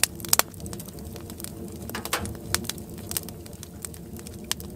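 Wood stove in a hot tent with a pot of water on it coming to the boil: irregular crackles and pops over a low steady rumble, with sharper pops near the start and about two seconds in.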